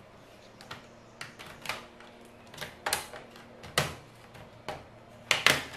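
Plastic snap clips of a Lenovo IdeaPad 3 laptop's bottom cover clicking loose one after another as the cover is pried off by hand. The clicks are sharp and irregular, with two close together near the end.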